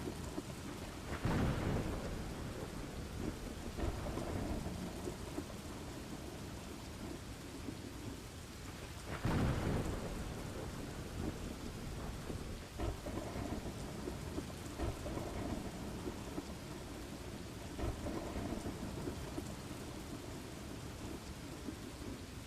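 Steady rain falling with thunder rumbling through it, two louder peals about a second in and about nine seconds in, and softer rumbles later.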